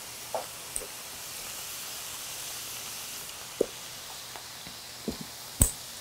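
Shrimp and lemon slices frying in pans on a gas stove, a low steady sizzle. A few light clicks and taps break in, the loudest near the end.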